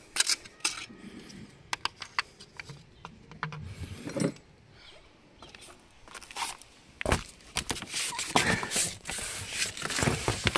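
Irregular clicks, knocks and scrapes of hands, parts and movement around the car, with one heavier thump midway and busier handling near the end.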